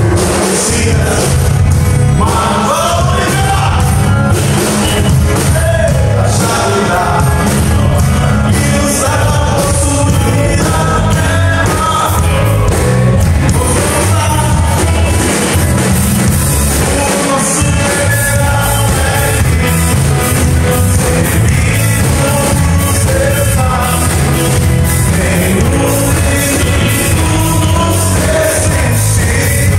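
Live gospel band playing a rock-style song through a PA: electric guitars, drum kit and keyboard with sung vocals over a steady drum beat.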